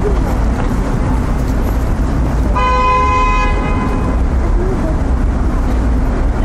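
A car horn sounds once about two and a half seconds in, a single steady tone held for about a second and a half. Steady low city traffic rumble runs beneath it.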